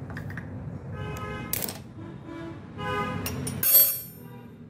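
Steel open-end spanner clicking and clinking against metal at the servo's jaw shaft coupling after tightening its clamp screw, with a sharp knock about a second and a half in and a cluster of bright ringing metallic clinks near the end, the loudest of them.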